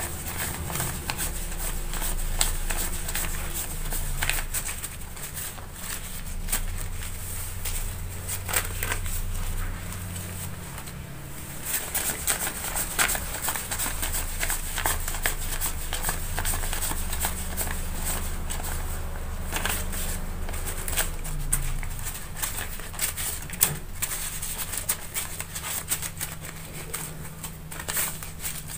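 Paper banknotes rustling and crackling as a wad is counted by hand, a steady run of quick flicks as each note is peeled off.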